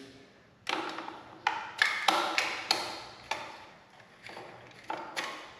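Metal tool clinking and tapping against a motorcycle oil filter as an oil filter wrench is fitted onto it: about ten irregular sharp clinks, each with a brief metallic ring.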